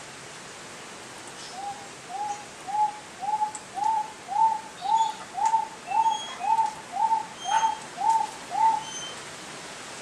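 Wonga pigeon calling: a long series of about fourteen identical notes, each rising then falling slightly, a bit under two a second. The notes grow louder over the first few and then hold steady until the series stops near the end. Faint, short high chirps from other small birds are heard under it.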